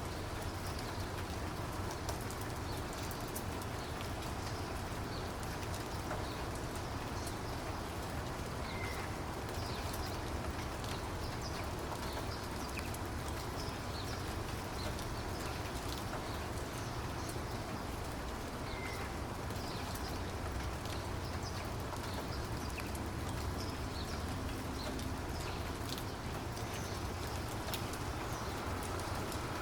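Steady rain falling, with the patter of many individual drops, and a few short bird chirps over it.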